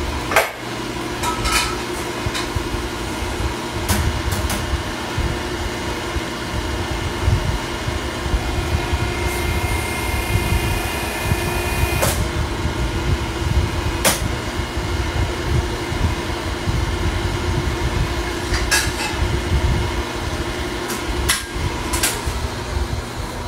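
Hydraulic exhaust pipe bender running while it bends a length of exhaust tubing: a steady motor-and-pump hum with a low rumble, rising to a strained whine for a couple of seconds around the middle. A handful of sharp clanks from the pipe and bender dies come through it.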